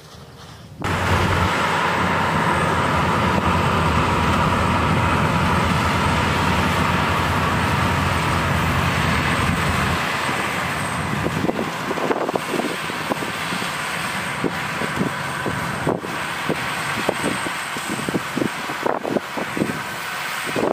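Rice combine harvester running, a loud, steady engine and threshing drone that starts abruptly about a second in. About halfway through it changes to a lighter running noise broken by frequent irregular knocks.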